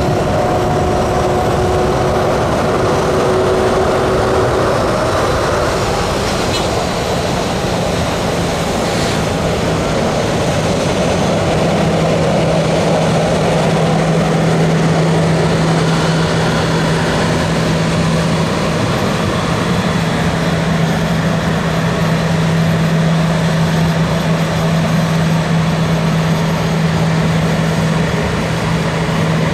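Jet engines of a Boeing 737-800, CFM56-7B turbofans, running at low taxi power as the airliner taxis past: a steady loud rush of engine noise, with a low hum that sets in about ten seconds in.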